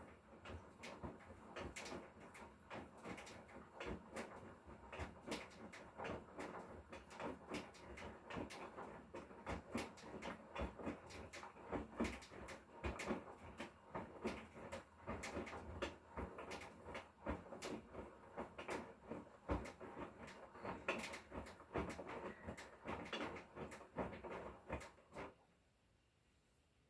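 Hotpoint Core 8 kg washing machine with an inverter motor running a wash, giving a steady stream of irregular knocks and clunks that stops abruptly near the end.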